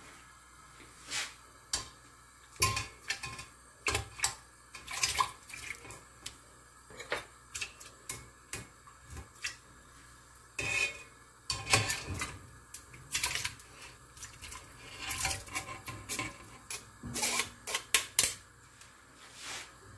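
Raw beef pieces being tipped from a bowl into a stainless steel pot and pushed off by hand. Irregular clinks and knocks of the bowl against the pot, with wet sounds of the meat dropping in. The loudest knocks come about halfway through and near the end.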